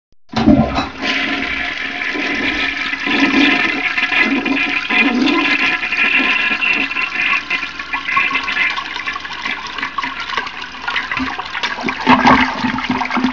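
A toilet flushing: a sudden rush of water that runs on steadily, swells near the end, then drains away.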